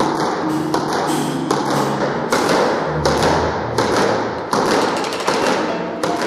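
Irregular thuds and taps, about two a second, from quick footwork on a wooden squash court floor during a movement drill.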